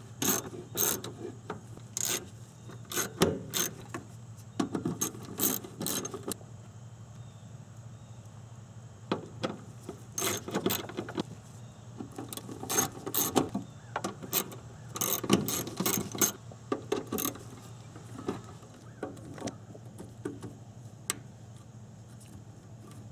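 Hand ratchet clicking in quick runs as the fuel pump assembly's retaining-plate bolts are run down one after another, with short pauses between bolts.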